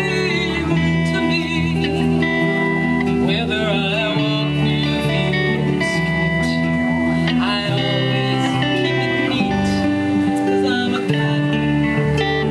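A small live band playing through amplifiers: two electric guitars over an electric bass, one guitar playing lead lines with bent, wavering notes.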